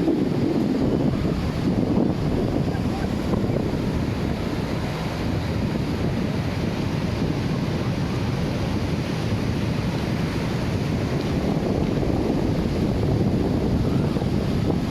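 Wind buffeting the microphone over a steady rush of surf.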